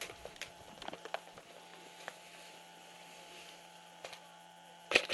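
Light rustling and clicks of movement through tall grass over a faint steady hum, then near the end a quick string of four or five sharp cracks from airsoft rifle fire.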